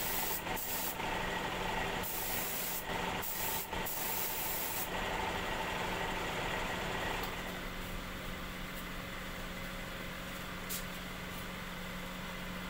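Air spray gun hissing in stop-start bursts, stopping about five seconds in, over a steady machine hum.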